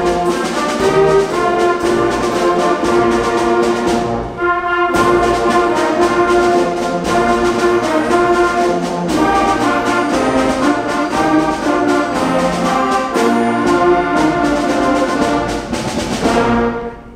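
Middle school concert band playing, with brass instruments prominent. There is a short break about four seconds in, and the piece closes on a held chord that is cut off just before the end.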